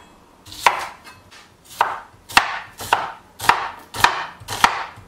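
Kitchen knife slicing an onion into thin strips on a wooden cutting board: about seven crisp cuts, roughly two a second, each ending in a knock of the blade on the board, starting about half a second in.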